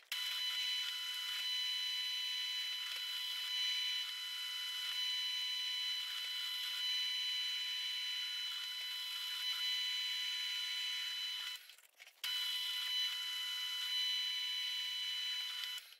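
Pillar drill running with its twist drill boring into a steel plate, a steady whine over a cutting hiss. It cuts out for half a second about twelve seconds in, then runs on and stops just before the end.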